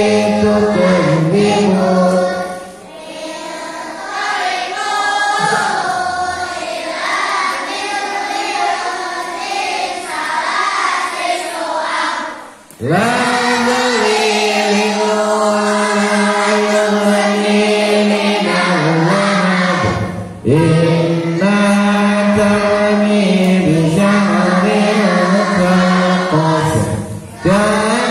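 A class of schoolchildren reciting the Qur'an together in unison, chanted in the Ummi method's melodic style. Long held notes glide from pitch to pitch, broken by a few short pauses for breath.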